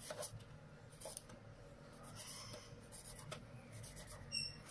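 Kitchen knife slicing tomatoes on a plastic cutting board: faint, irregular taps and scrapes of the blade through the tomato and onto the board. A brief high squeak comes near the end.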